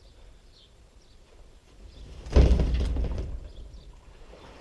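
An IBC tank in its steel cage being tipped up onto the edge of its pallet: a sudden loud knock and rattle about halfway through, dying away over about a second.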